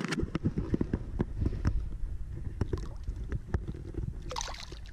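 Wind rumbling on the microphone, with repeated knocks and clatter against the canoe as a smallmouth bass is handled over the side. A brief splash of water comes near the end as the fish is put back in the water.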